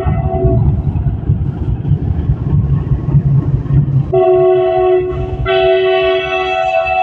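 WDG4G diesel locomotive sounding its horn as it passes close by with a goods train: a blast that ends about half a second in, then a short blast about four seconds in and a longer one held from about five and a half seconds to the end. Under the horn, the heavy rumble of the locomotive's engine and the train's wheels on the rails.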